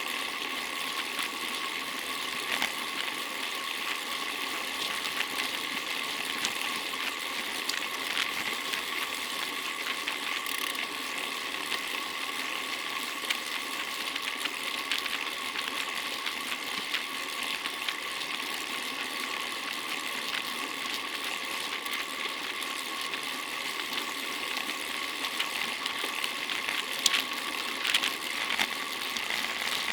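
Bicycle on the move: a steady whir of chain and tyres with a constant high hum and scattered light clicks, a few sharper ones near the end.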